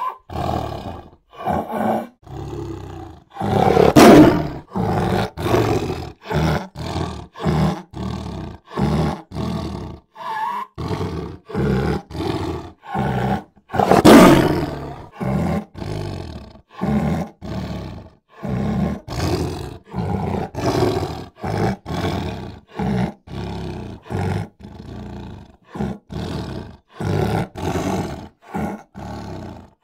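A lion giving a long series of short grunting roars, about one a second, with two much louder full roars about four seconds and fourteen seconds in.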